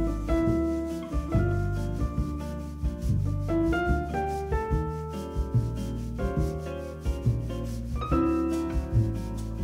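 Background music: a bass line and sustained keyboard-like notes changing about once a second, over a light, fast percussion tick.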